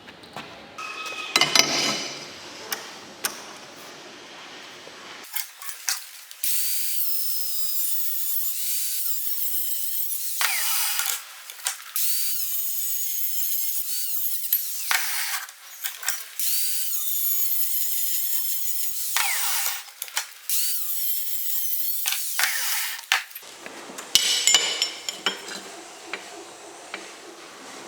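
Handheld power tool running in four runs of a few seconds each with short pauses, a high whine that wavers in pitch, between stretches of knocking and clattering of workpieces being handled.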